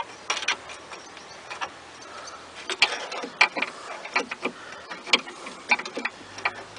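Irregular sharp clicks and taps, a few at first and then a quicker run from a little under halfway through, as a tool is poked at a VW Golf Mk4 door lock mechanism.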